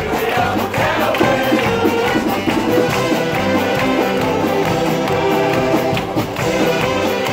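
String band playing live: banjos strummed over saxophones and an upright bass, with a steady beat.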